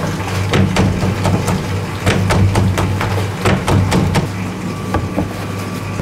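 Steady low hum of bakery machinery under irregular knocks and clatter, a few a second, the hum easing a little about four seconds in.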